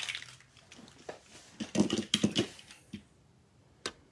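Small plastic ink bottles being handled on a tabletop: a few faint clicks, then a cluster of soft taps and knocks about halfway through, and one sharp click near the end.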